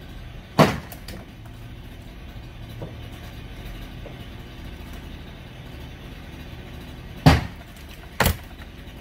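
Garage demolition: three loud crashes of structure breaking, one early and two close together near the end, over a steady low hum.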